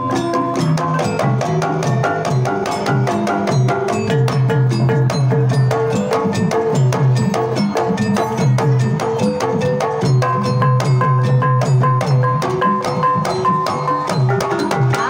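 Banyumasan gamelan percussion played in a fast, dense rhythm: a kendang hand drum and small bronze kettle gongs struck with padded mallets, with ringing pitched tones over the strokes. The playing stops right at the end.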